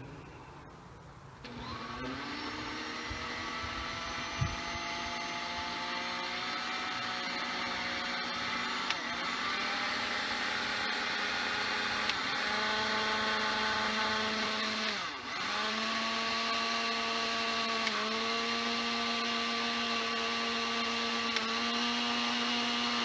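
Countertop blender motor switching on about a second and a half in and running steadily, blending a thick mix of almond milk, peanut butter, honey, cacao and protein powder. Its whine dips briefly in pitch several times, most deeply a little past the middle.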